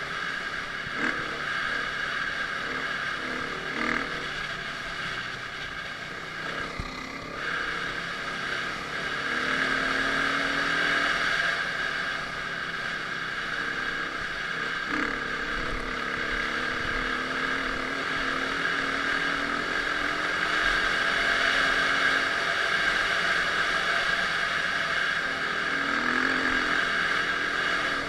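Dirt bike engine running, its pitch rising and falling as the throttle is worked.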